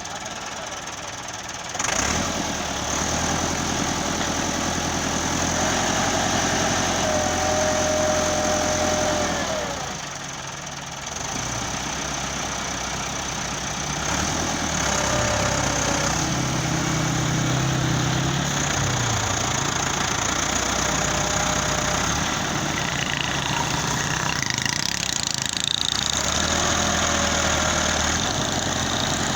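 Engines of road-building machinery running and idling. The sound jumps louder about two seconds in, drops briefly around ten seconds, and shifts again a few times.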